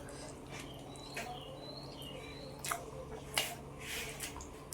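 Close-miked wet chewing and mouth sounds of someone eating mutton curry, with several short smacking bursts. A few faint high chirps in the first two seconds.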